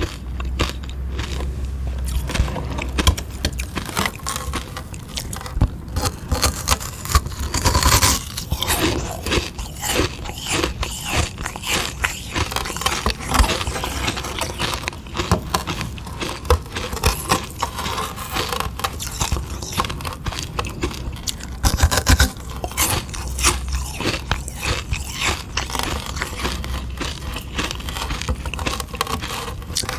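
Close-miked biting, crunching and chewing of a frozen sugar-water ice lolly, with dense crackling and scraping of the ice.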